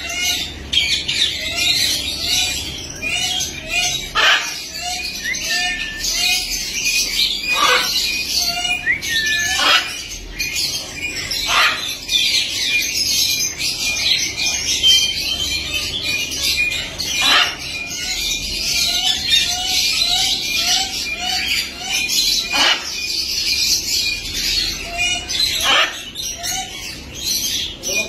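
Caged budgerigars chattering and chirping nonstop, with a loud, sharp squawk from a larger parrot every few seconds.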